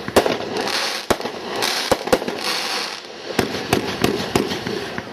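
Winda 'Knockout Equipment' consumer fireworks going off: a string of about eight sharp bangs, some in quick succession, with crackling between them.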